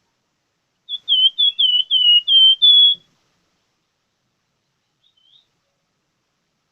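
A plamboyan (scarlet minivet) singing: a quick run of about eight short, slurred whistled notes lasting about two seconds, then one faint note a couple of seconds later.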